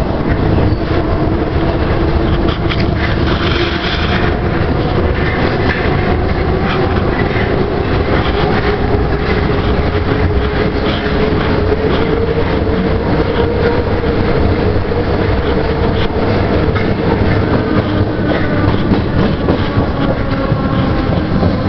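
Paris Métro MF67 train heard from inside a carriage running through a tunnel: steady loud rumble and clatter of steel wheels on the rails, with a motor whine that slowly rises in pitch. Near the end, higher tones slope gently down.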